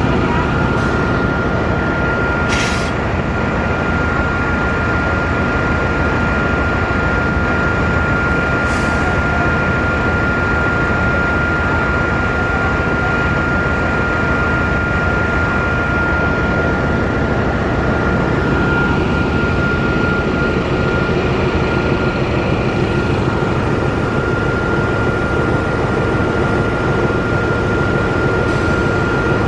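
CC 206 diesel-electric locomotive's diesel engine running loud and steady while warming up, with a steady high whine over it. Two brief hisses come about 3 and 9 seconds in.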